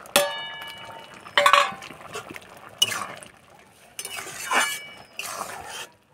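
A steel plate clanks twice against a metal karai, each strike ringing, as fried scrambled egg is scraped off into simmering masoor dal; then a spatula scrapes and stirs through the dal in the pan.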